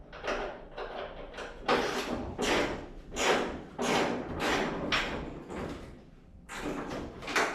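Hand ratchet with a 1/2-inch socket working a stubborn door hinge bolt loose: a short rasping ratchet stroke repeating about every three-quarters of a second.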